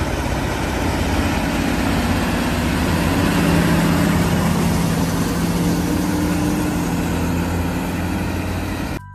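Heavy diesel engine running steadily at a low, even pitch, cutting off suddenly near the end.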